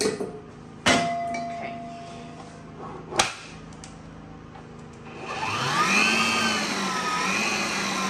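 Electric tilt-head stand mixer starting up about five seconds in, rising in pitch and wavering as it beats cake batter, then running steadily. Before it, two sharp knocks of bowls and utensils being handled.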